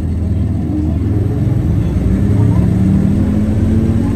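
Nissan Diesel Space Runner city bus's diesel engine accelerating, heard from on board: a low, steady running note that grows louder and rises in pitch from about halfway through as the bus picks up speed.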